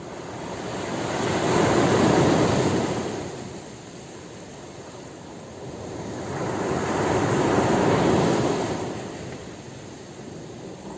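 Ocean surf: two waves break and wash in, each a rush of noise that swells and fades, the first peaking about two seconds in and the second about eight seconds in.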